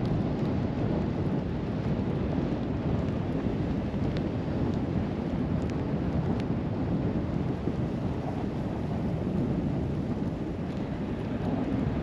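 Steady low rumble of wind buffeting the microphone, with a few faint clicks.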